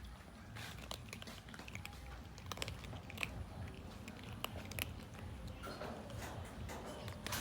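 Cats eating, with irregular sharp clicks of chewing and biting on food.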